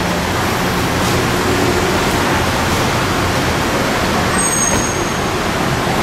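Steady rumble and hiss of car engines and traffic in a covered taxi rank.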